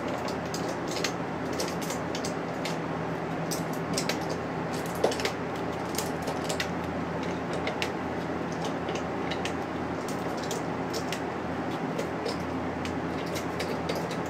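CN freight train rolling past: a steady low hum and running noise with irregular sharp metallic clicks and clanks, the loudest about five seconds in.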